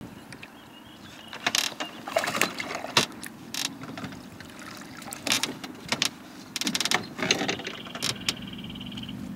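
Irregular knocks, clatter and rattles of gear in a small fishing boat over a steady low hum, with a quick run of clicks about seven seconds in.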